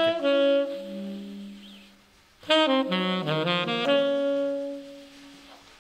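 Saxophone improvising in a free-jazz style: slow held notes in two phrases, the second entering about two and a half seconds in, each fading away.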